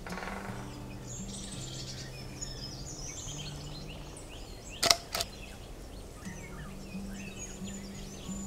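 Forest birds chirping and singing in many short calls over soft background music of low held notes that change every second or so. About five seconds in come two sharp clicks in quick succession.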